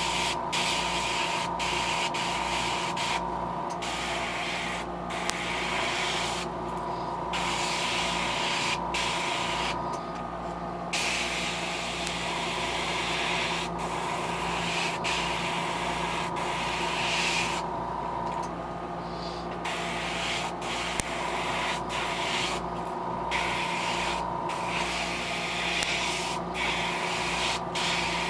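Iwata HP-CS gravity-feed airbrush spraying paint in short passes: a hiss that stops and starts again every few seconds as the trigger is worked. A steady low hum runs underneath.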